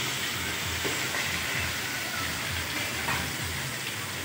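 Fish frying in hot oil in a large kadai: a steady sizzling hiss, with a low hum underneath.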